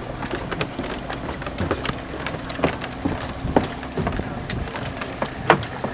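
Irregular wooden knocks and clatter of oars working against the rowlocks and gunwales of a pulling boat, over steady background noise. The loudest knock comes about five and a half seconds in.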